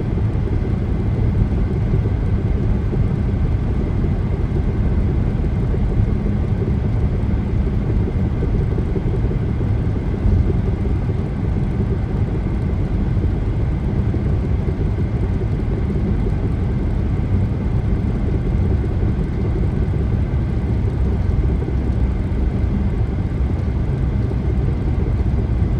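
Steady road noise of a car driving at highway speed, heard from inside the cabin: an even, low rumble of tyres and engine that holds unchanged throughout.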